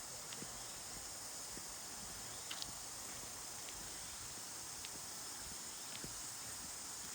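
Scattered footsteps and small clicks on a trail, a few faint knocks a couple of seconds apart, over a steady high hiss.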